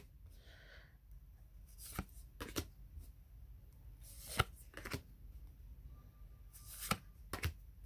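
Tarot cards being flipped through by hand, one at a time: faint, sharp snaps and slides of card stock at irregular intervals as each card is moved, the loudest about four and a half seconds in.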